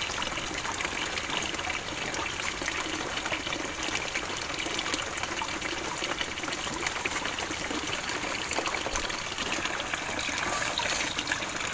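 Running water from a small hillside stream, a steady rush and trickle.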